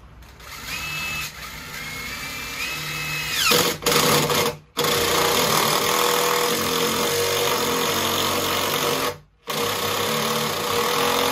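Cordless power driver sinking a self-drilling structural screw into wooden joists. A few short starts come first, the motor pitch rising, then two long steady runs under load, split by a brief stop.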